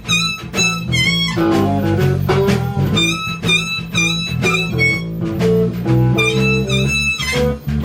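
Live blues band playing an instrumental stretch with no singing: guitar to the fore over a steady beat and a low bass line.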